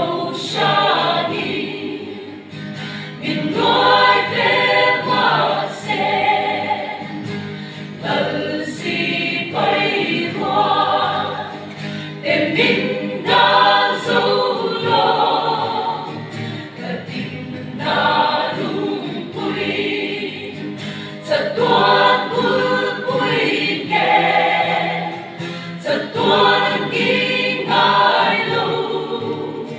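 Mixed choir of women's and men's voices singing a gospel hymn, in phrases that swell and fade every few seconds.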